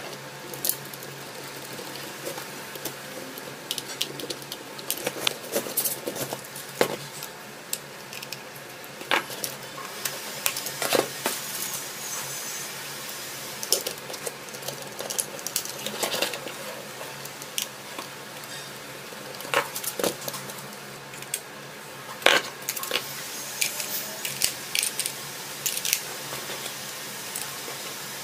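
Handling noise of plastic toy parts: irregular clicks, taps and knocks as the pieces of a plastic RC vehicle and its batteries are fitted by hand, over a steady hiss.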